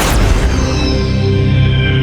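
Intro music of sustained, steady low tones, with the tail of a boom sound effect fading out in the first half second.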